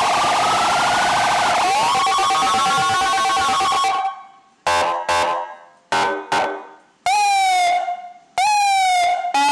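AS8910 electronic siren box cycling through its tones. It plays a fast warble, then a slow rising-and-falling wail. About four seconds in it cuts off and gives a string of short blips, then two falling whoops.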